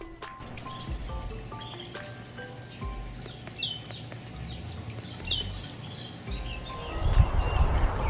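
Northern cardinal giving short, sharp, falling chip notes, spaced out by a second or so, over a steady high-pitched insect trill that stops near the end. A brief burst of rustling noise comes near the end.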